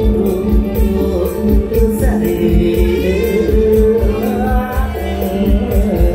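Live mor lam band music played loud through a PA: a steady drum beat with cymbal ticks under held instrument notes, and a man singing into a microphone.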